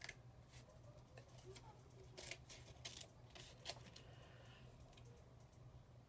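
Scissors cutting a sheet of stamping masking paper: a few quiet, sharp snips scattered through the first four seconds, over a faint steady low hum.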